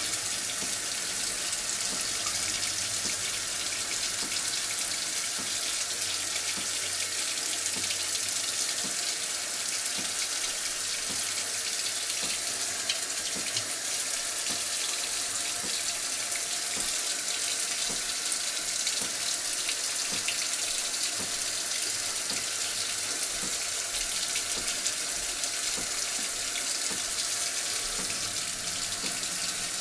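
Water running steadily from a faucet into a sink, an even hiss.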